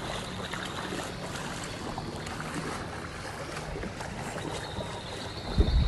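Steady rushing noise of wind and moving floodwater, with a low hum underneath. Near the end, loud wind buffeting on the microphone sets in.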